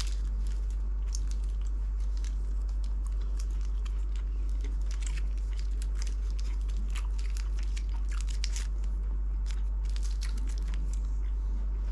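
A person biting into and chewing a cheese stick snack: scattered short clicks of chewing, over a steady low hum.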